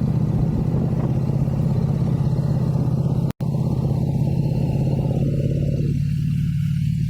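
V-twin motorcycle engine with an aftermarket exhaust running at a steady, even pitch, with no revving. The sound cuts out for an instant about a third of the way through, and the higher rushing noise over it fades away near the end.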